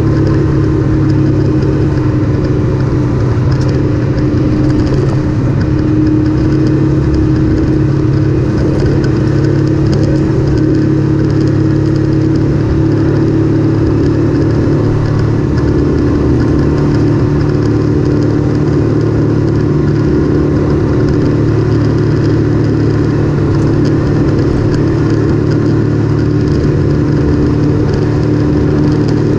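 Off-road vehicle's engine running steadily under way, a constant drone with no change in pitch.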